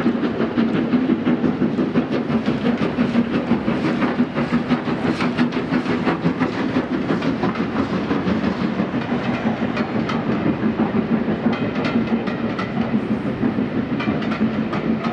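LMS Hughes 'Crab' 2-6-0 steam locomotive No. 13065 hauling a train of coaches across a girder bridge, the wheels clattering over the rail joints in a steady run of sharp clicks.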